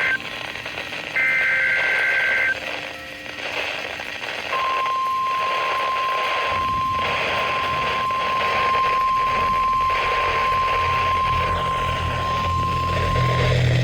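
NOAA Weather Radio Emergency Alert System signal: the tail of one short burst of two-tone digital SAME header data, and another from about one to two and a half seconds in. About four and a half seconds in, the steady 1050 Hz warning alarm tone starts and holds for about nine seconds. Together they announce an incoming severe thunderstorm warning.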